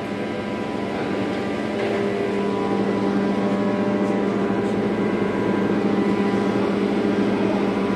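GM diesel generator set running with a steady, many-toned drone. About two seconds in it grows louder and a strong steady hum comes in as the engine is left running for a synchronisation check.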